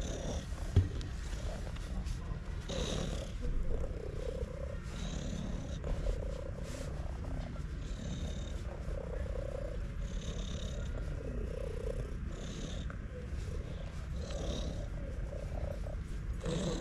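Domestic cat purring loudly while being stroked, a continuous rough rumble that swells about every two seconds. A single short knock sounds about a second in.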